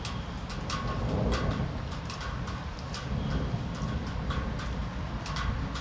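Rain falling, with drops tapping irregularly and sharply on a hard surface close by over a steady low rumble of the storm.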